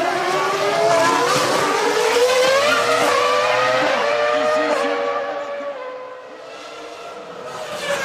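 Formula One car's 3.0-litre V10 engine revving up through the gears, its pitch climbing with quick upshifts, then fading away. Another car comes through loudly near the end.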